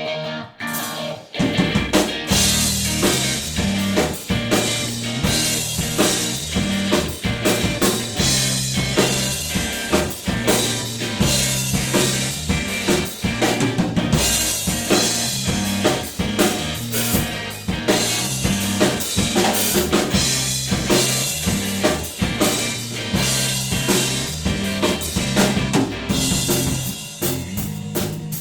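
Drum kit with Noto hiba (ate) wood shells, made by Koike Drums, playing a steady beat on kick and snare, with an electric bass line of low stepping notes underneath. The full groove comes in about a second in.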